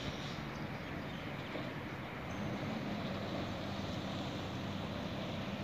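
Engine of a decorated cargo truck climbing away up a dirt mountain road, heard as a faint, steady low drone.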